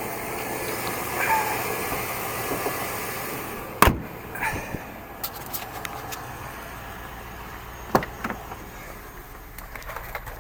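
Car with its engine running. A car door shuts with a sharp thump about four seconds in, after which everything sounds quieter, and a second sharp click comes about eight seconds in.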